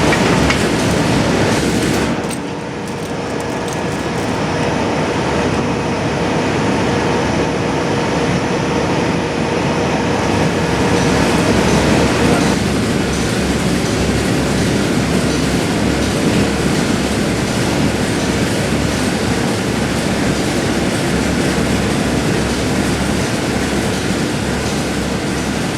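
Steady loud rumble of heat-treat furnace line machinery, a continuous din with a faint humming tone. It dips briefly about two seconds in and changes character about halfway through.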